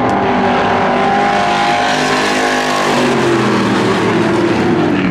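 Several IMCA stock cars' V8 engines racing together at full throttle. Their engine note falls a little past halfway through as cars go by.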